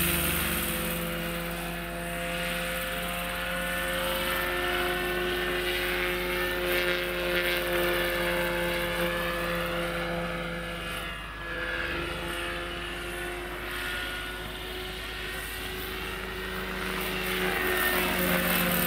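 Electric-powered Bo 105 Superscale 800 model helicopter with a Hacker 12S motor in flight: a steady whine of motor and rotors. It is loudest at the start and again near the end as it passes close, and fades in between while it flies farther out.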